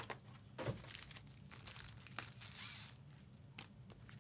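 Faint rustling and light clicks of trading cards and foil wrappers being handled, with a brief crinkle about two and a half seconds in.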